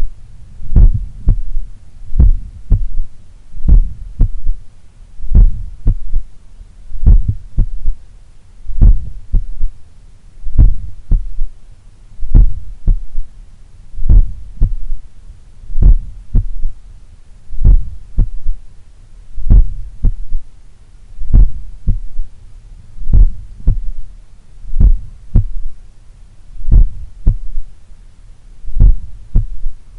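Human heartbeat heard through a stethoscope at the apex of the heart, slow at about 35 beats a minute, each beat a close cluster of low thumps: the two normal heart sounds followed by a third heart sound (S3). The uploader puts the S3 down to blood recoil or a slightly larger, supple left ventricle.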